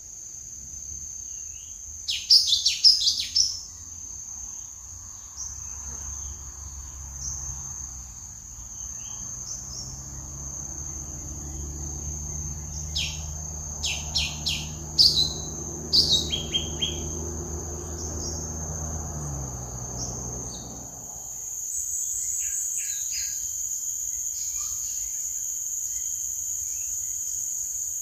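Lesser green leafbird (cucak ijo mini) giving short, sharp chirps in clusters, loudest about two seconds in and again around fourteen to sixteen seconds, over a steady high-pitched insect drone. A low droning hum runs underneath from about six seconds in and stops around twenty-one seconds.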